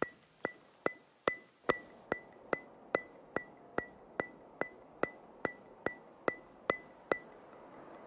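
Background music reduced to a single ringing percussive tick, repeating evenly about two and a half times a second, then stopping about seven seconds in.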